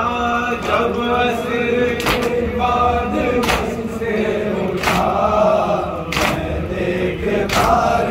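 A noha sung by men without instruments, one lead voice carried over a group chanting along. Cutting through it, the gathering beats their chests in unison (matam), a sharp strike about every second and a half.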